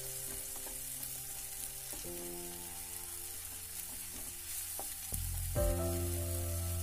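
Gram flour roasting in hot oil in a non-stick pan, sizzling as it is stirred and scraped with a wooden spatula. A steady low hum comes in about five seconds in.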